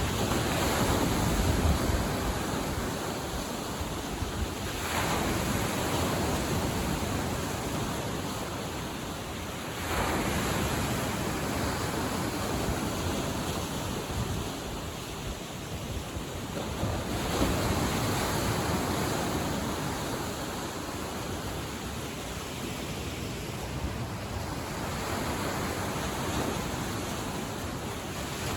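Lake Michigan waves washing onto the shore, the surf swelling and ebbing every several seconds, with some wind rumbling on the microphone.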